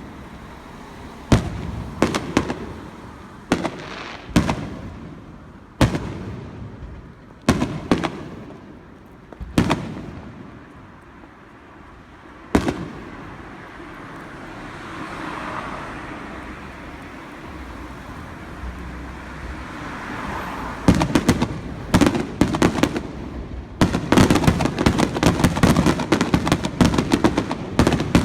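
Aerial fireworks exploding, with single loud bangs every second or two. A quieter stretch of rumble and hiss follows, then about three-quarters of the way in a rapid barrage of overlapping bangs that runs on.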